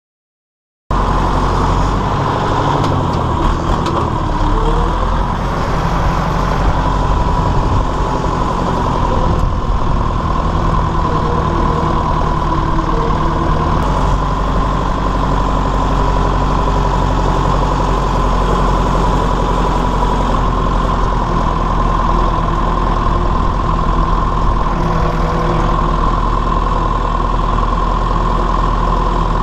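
Massey Ferguson 168's four-cylinder Perkins diesel engine running steadily as the tractor drives along, heard from the driver's seat, with a steady whine above the engine note. The sound cuts in abruptly about a second in.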